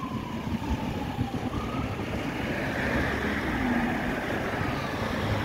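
Fire engine's wail siren fading into the distance, its pitch falling slowly, then rising again about two seconds in, over a steady noise of passing road traffic.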